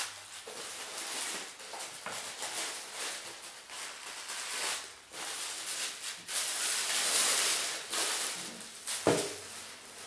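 Tissue paper and paper stuffing rustling and crinkling as it is pulled out of sandals and handled in a shoe box, in uneven surges that are loudest past the middle, with one sharp crackle near the end.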